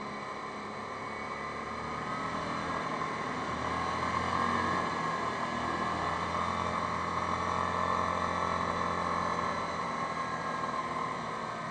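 Yamaha Grizzly 550 ATV's single-cylinder four-stroke engine running as the quad rides along the road. It grows louder about two seconds in, as if under more throttle, and eases off near the end.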